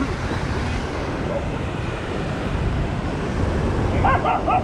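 Wind buffeting the microphone, a steady low rumble, with a dog barking several times in quick succession near the end.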